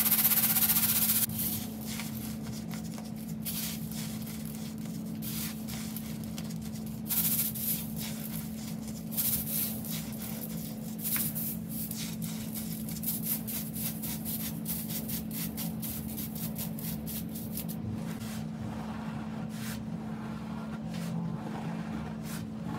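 Baking soda shaken through a stainless steel mesh sieve, a loud hiss for about the first second. Then lumps of baking soda are crushed and rubbed by hand against the mesh, with irregular crunching and crackling. A steady low hum sits underneath.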